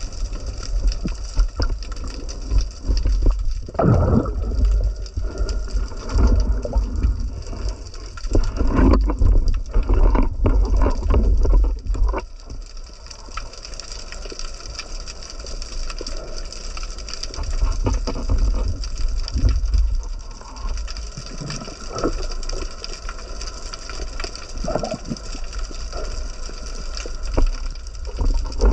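Underwater audio picked up by an action camera in its waterproof housing: a low rumble of moving water with gurgling, and irregular knocks and clicks as the speared fish and spear are handled, busiest in the first twelve seconds and calmer after.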